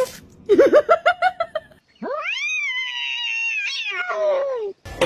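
A cat yowling: a quick string of short cries, then one long drawn-out yowl that rises, holds and falls away.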